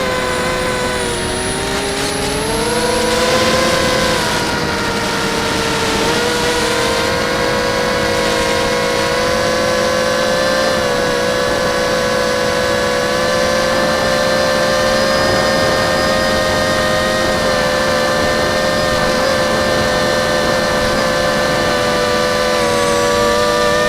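Small quadcopter's brushless motors and propellers whining in flight, the pitch dipping and climbing over the first few seconds, then holding fairly steady with small wobbles as the throttle is adjusted.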